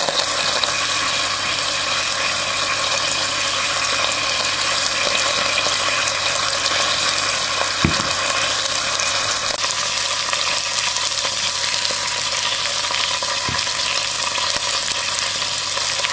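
Beef roast sizzling in melted butter as it browns in an electric pressure cooker's inner pot: a steady frying hiss, with two short knocks, about eight and thirteen seconds in.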